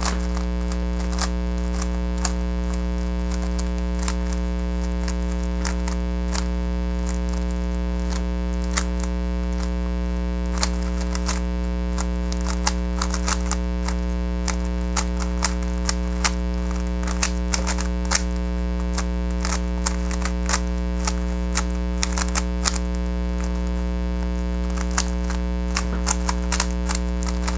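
Plastic clicks of a GAN 356 RS speed cube being turned face by face during a solve, coming in quick irregular runs, over a steady electrical hum that is the loudest thing throughout.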